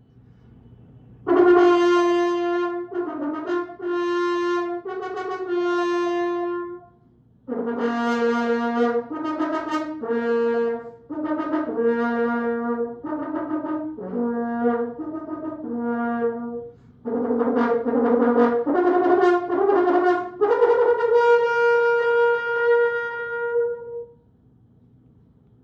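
French horn played solo and unaccompanied: phrases of held notes broken by short pauses, starting about a second in and ending on a long held note near the end.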